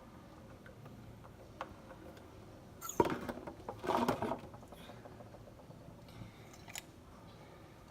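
Liquid soap being dispensed from a plastic bottle into a container of slime glue: a sharp click about three seconds in, then two short squirts about a second apart.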